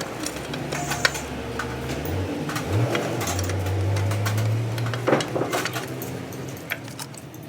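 A machine motor hums steadily, rising in pitch and getting louder about two and a half seconds in, then fading after about five seconds. Scattered metal clinks and knocks sound over it, the strongest about five seconds in.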